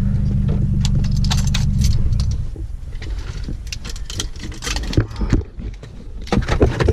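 A steady low motor hum that stops about two and a half seconds in, with clicks and rattles of small metal objects being handled throughout.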